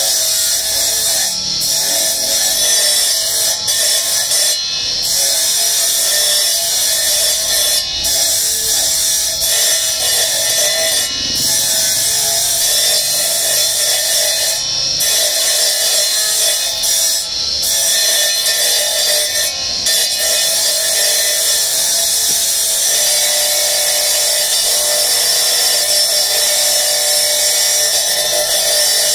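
A spinning circular cutting disc grinding through pieces of marble held by hand: a steady, loud grinding hiss over a constant motor whine. The hiss dips briefly about eight times in the first twenty seconds.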